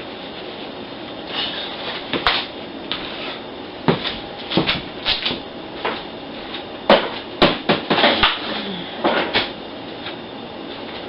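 Irregular knocks, clicks and clatters of objects being handled, bunched most densely a little past halfway, over a steady background noise.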